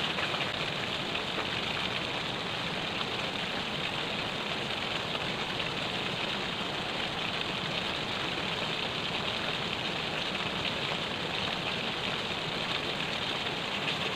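Steady rushing noise of flowing river water, even and unbroken throughout.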